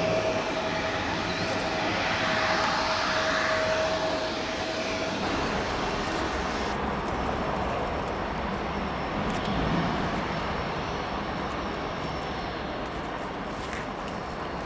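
Jet airliner's engines running, a steady dense noise that slowly fades over the last several seconds. A thin steady tone runs with it and stops about five seconds in.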